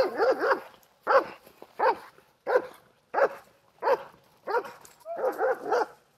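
A dog barking repeatedly, about one bark every two-thirds of a second, with a quicker run of barks near the end.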